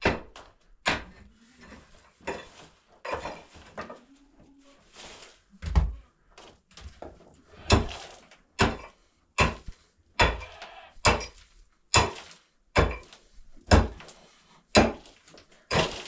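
Pickaxe blows into a stony earth floor while digging a trench, with scraping of loosened rubble. The blows come irregularly at first, then settle about halfway through into a steady run of hard strikes, a little more than one a second.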